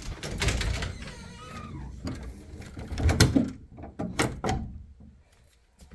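Bi-fold door being pushed open and folding, a rubbing, sliding noise followed by a handful of sharp clicks and knocks about three to four and a half seconds in from its 3D-printed sprung latch mechanism.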